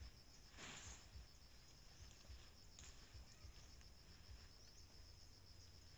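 Faint, steady high-pitched trilling of insects, with a brief rustle about a second in.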